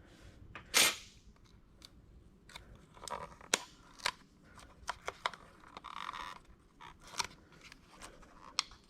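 Vinyl wrap film being cut and handled: scattered sharp clicks and short crinkly rustles, with one louder brief rasp about a second in.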